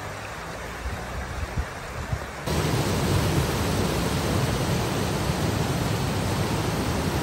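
Steady rush of a shallow stream running over stones. About two and a half seconds in it jumps louder, to the rush of a rocky beck cascading in white water over boulders.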